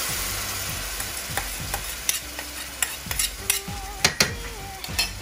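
Water-thinned curry masala sizzling in hot oil in a stainless steel pan, the sizzle dying down over the first couple of seconds. A metal spoon then stirs the pan, clinking and scraping against the steel, more often near the end.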